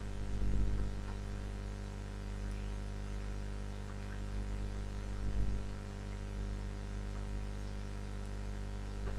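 Steady electrical mains hum with a light hiss in the recording, with two faint soft bumps about half a second in and about five seconds in.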